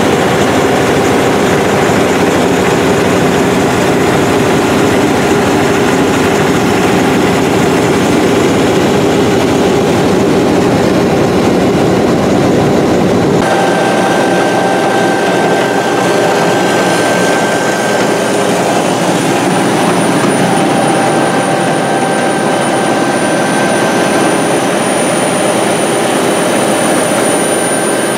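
Godwin CD500M Dri-Prime pump set running, its diesel engine and centrifugal pump making a loud, steady machine noise. About halfway through, the deep rumble drops away and a thin, steady high whine comes through.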